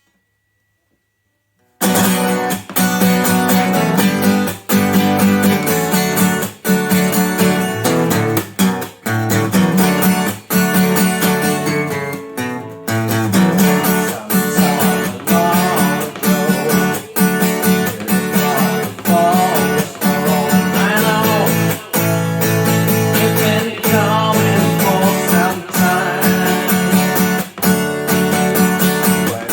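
Acoustic guitar strummed in a steady rhythm, starting about two seconds in after near silence. A singing voice joins about halfway through.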